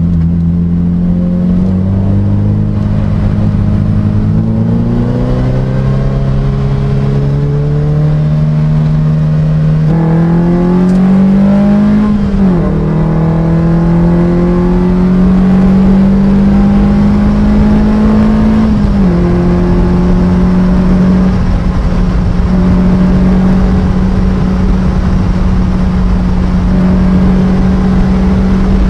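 Onboard sound of a historic Lotus Type 25 racing car's engine running loudly on track. Its pitch climbs slowly, drops sharply twice, about twelve and nineteen seconds in, and then holds a steady note.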